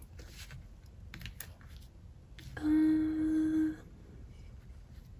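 A few faint light clicks, then about two and a half seconds in a person hums one steady 'mmm' for about a second.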